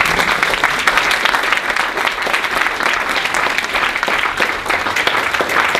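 An audience applauding, many hands clapping steadily without a break.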